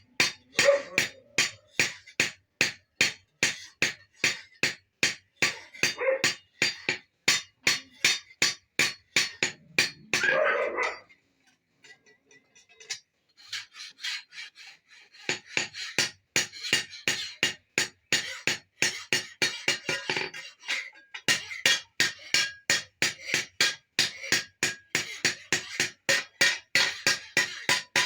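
Blacksmith's hammer striking metal on an anvil in a steady rhythm of about three blows a second, stopping briefly about halfway through and then going on.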